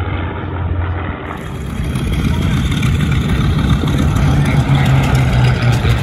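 Piston-engined WWII fighters flying past, their liquid-cooled V-12 engines and propellers droning steadily. The drone grows louder after the first couple of seconds.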